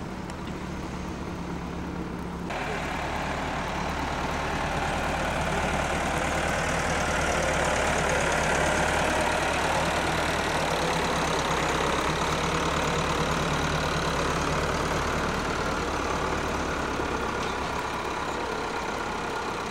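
Diesel engines of an excavator and a farm tractor running steadily, with a broader rushing noise that comes in suddenly about two seconds in.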